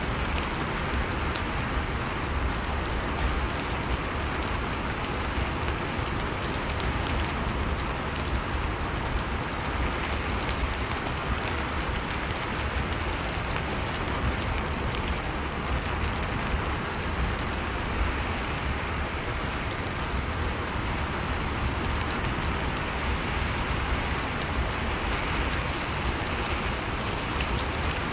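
Steady rain falling, with a dense patter of drops on surfaces over a low rumble.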